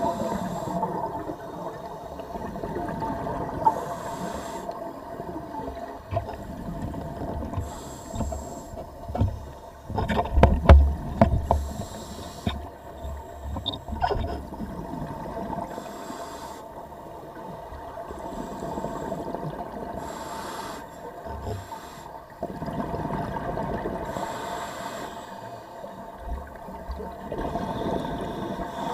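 Scuba regulator breathing recorded underwater: hissing inhalations and bubbling exhalations recur every few seconds over a steady hum. A cluster of clicks and low thumps comes about ten seconds in.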